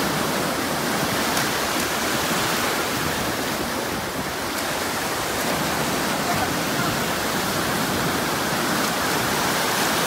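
Ocean surf breaking and washing through shallow water around waders: a steady rushing with no breaks.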